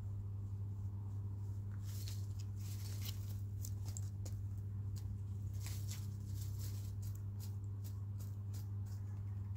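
Chickens pecking and scratching: an irregular scatter of quick, sharp taps and rustles, most of them between about two and nine seconds in, over a steady low electrical hum.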